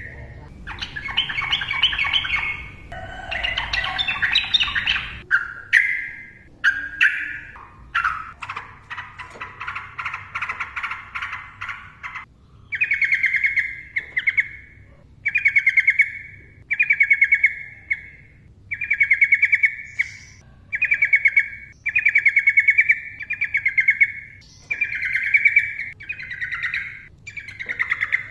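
Sooty-headed bulbul singing in quick succession: dense warbled phrases for the first twelve seconds or so, then short, fast-trilled phrases repeated about once a second.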